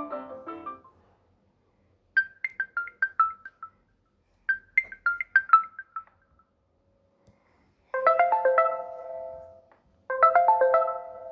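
Nokia Lumia 520 ringtones and alert tones playing one after another: a marimba-like tune fades out, then a short run of bell-like notes plays twice, then a fuller ringing chime plays twice.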